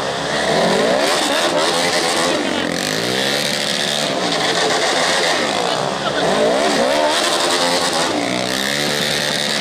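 Sport quad bike engines revving hard, the pitch rising and falling again and again as they are throttled up and back.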